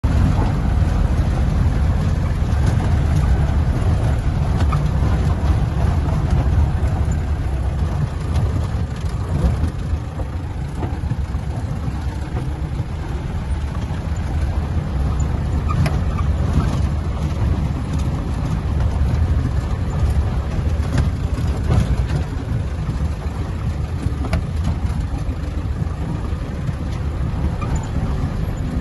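Off-road vehicle running over a rough dirt track: steady low engine and road noise with scattered small knocks and rattles.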